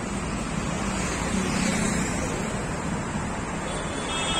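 Steady road traffic noise from vehicles passing on a city street.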